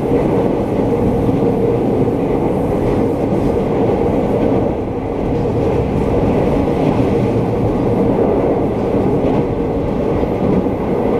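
Steady running noise of a JR East E217 series electric train at speed, heard from inside the passenger car: wheels on rail with the car's body noise. It dips briefly about five seconds in.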